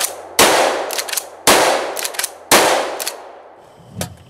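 Three shots from a short mag-fed pump-action shotgun with an 8-inch barrel, about a second apart, each report trailing off. A few sharp clacks follow each shot as the pump is worked to eject the spent hull and chamber the next shell.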